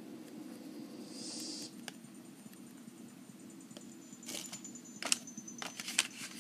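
Clear plastic blister packaging being handled: a few sharp crackles and clicks in the last two seconds or so, over a steady low hum.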